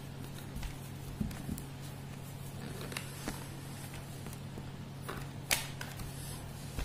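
Small clicks and creaks of a ballpoint pen and a notebook being handled, with one sharper click near the end, over a steady low hum.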